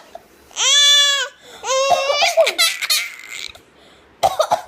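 Baby laughing in high-pitched squeals: one long squeal about half a second in, then a run of short, choppy laughs.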